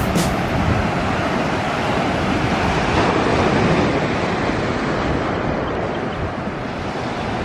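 Ocean surf breaking and washing ashore, a steady rush of noise that swells a little midway.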